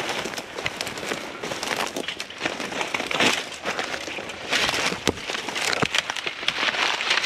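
Dry weeds, brush and twigs rustling, crackling and snapping as people push through on foot at a quick walk, with many sharp snaps over a steady rustle.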